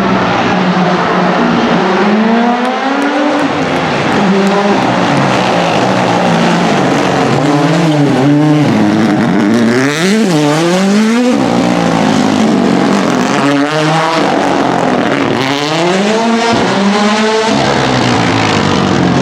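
Rally car engine at racing pace, its pitch climbing and dropping again and again as the car accelerates through the gears and slows for corners, with a sharp drop and climb about ten seconds in.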